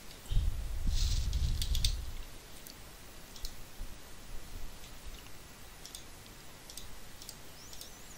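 Computer mouse clicks, scattered single clicks every second or so. A low rumble, the loudest sound, runs for about a second and a half near the start.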